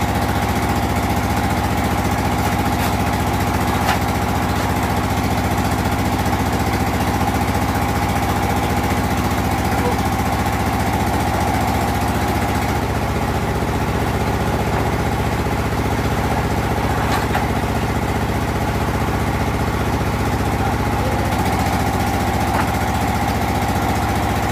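Engine-driven clay brick-moulding machine running steadily as clay is pressed through it, a constant mechanical hum with a few faint clicks.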